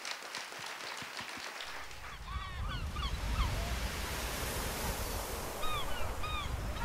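Brief clapping at first, then the steady wash of sea surf with repeated short gull calls over it, starting about one and a half seconds in.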